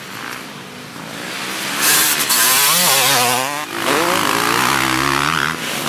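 Motocross dirt bike engines revving hard as the bikes ride past on the track, the engine pitch climbing and falling. The sound grows loud about two seconds in, dips briefly near the middle, then rises again.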